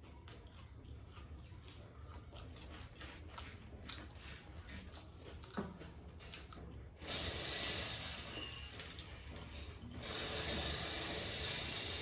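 Close-up chewing of crunchy jhal muri (spiced puffed rice), many small crackles with one sharper crunch about halfway through. About seven seconds in, a louder steady hiss takes over and runs on, with a short break near ten seconds.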